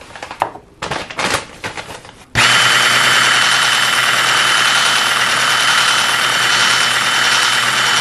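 A few short knocks and rattles, then about two seconds in an electric immersion blender with a whisk attachment starts and runs steadily at one speed with a high whine, whisking cake batter in a glass measuring jug.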